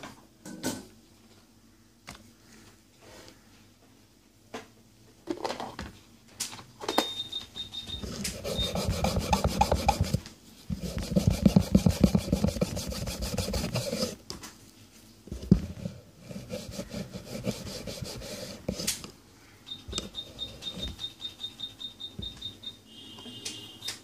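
Rapid back-and-forth rubbing of a printed circuit board with a cloth, wiping dark flux residue off around freshly soldered connector pins. The scrubbing comes in spells, hardest in the middle, with a few separate knocks in between.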